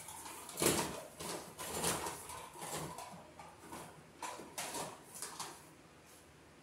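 Handling noise: a string of irregular rustles and scrapes, a few a second, from electrical materials being handled, tapering off near the end.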